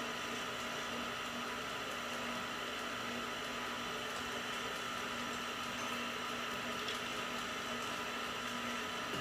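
Electric stand mixer running steadily with its paddle beating butter, sugar, eggs and vanilla: an even motor hum with a steady low tone.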